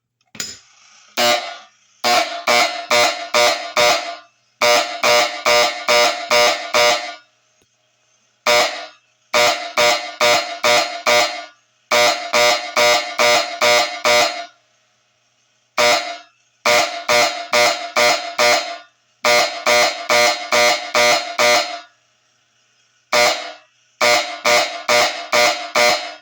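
Benjamin Electric vibrating projector horn sounding a coded fire-alarm signal from an Edwards coded pull station: one buzzing blast, then five, then six, with a short gap between groups. The 1-5-6 code repeats about every seven seconds.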